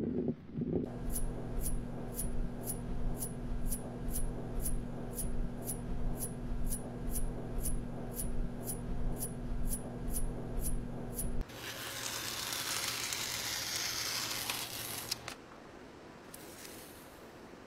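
Synthetic sound effects for a 3D animation: a steady electronic hum with a sharp tick about twice a second, stopping abruptly about eleven seconds in. Then comes a loud crackly hissing scrape for about four seconds, matching a blade cutting a soft ridged sheet, which drops to a faint hiss.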